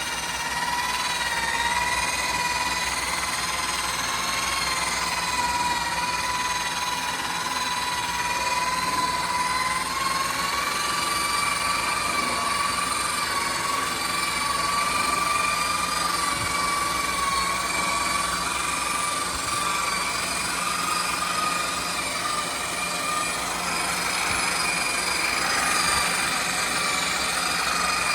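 Harbor Freight electric buffer running steadily with a high motor whine as its pad polishes a plastic headlight lens; the pitch rises slightly about ten seconds in. The owner thinks the buffer is on its last legs.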